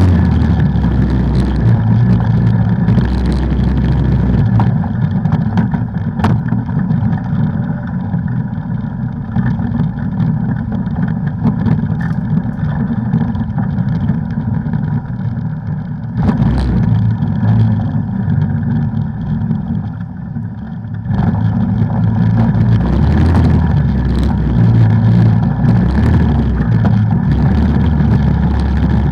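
Off-road vehicle engine running under way, the throttle easing off and picking back up, with scattered knocks and rattles.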